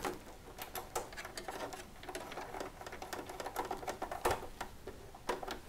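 Screwdriver turning a screw into the metal PCIe bracket of a 2010 Mac Pro: faint, irregular small ticks and scrapes, with a couple of sharper clicks near the end.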